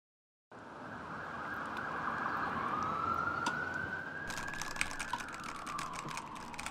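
A siren wailing slowly, rising and falling in pitch over a steady background hiss, starting about half a second in after a moment of silence. From about four seconds in, quick clicks of typing on a computer keyboard join it.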